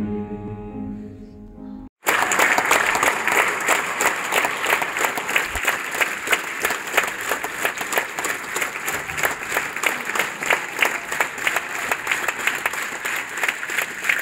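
Soft piano music fading out, then about two seconds in a large audience breaks into loud, steady applause.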